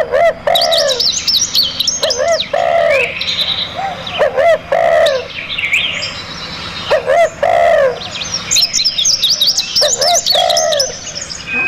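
Several wild birds calling and singing at once: short arched calls repeating over and over, overlaid with rapid high chirps and trills.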